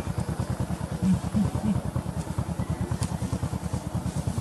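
A small engine running steadily at idle, a rapid, even low pulsing of about ten beats a second.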